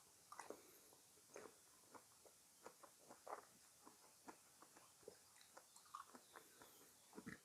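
Faint chewing of fresh fruit: soft, irregular wet crunches and mouth clicks, a few per second.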